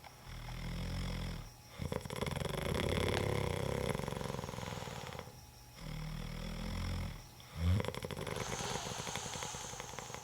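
Man snoring heavily, two long rattling snores about five seconds apart, each led in by a shorter low rumble.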